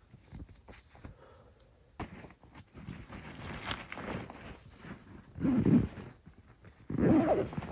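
Clothing and backpack fabric rustling and being handled close to the microphone, with light clicks and crinkles. It gets busier after about two seconds, and two louder brushes of fabric come near the end.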